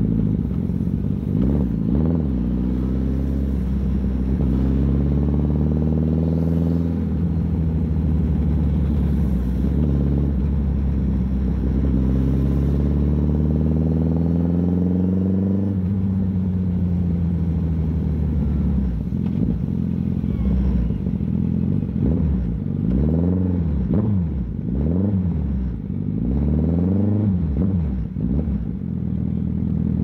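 2016 Suzuki Hayabusa's inline-four engine pulling up through the revs, with a step down in pitch about seven seconds in like a gear change. The revs fall away about sixteen seconds in, then rise and drop several times in quick succession near the end.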